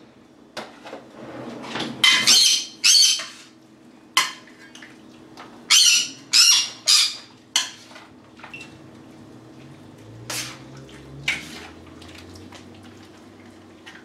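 Kitchen utensil scraping and clinking against a bowl in a series of short strokes while the ceviche is mixed, with a faint steady low hum underneath.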